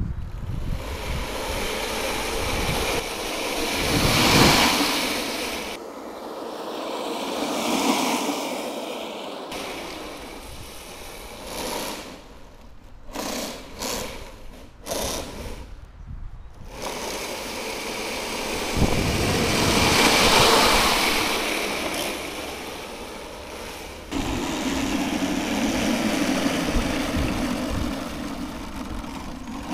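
A 3D-printed tracked tank's electric drive motors and tracks running at speed during speed tests, with a steady whine. It grows louder and then fades twice as it passes, once about four seconds in and again about twenty seconds in.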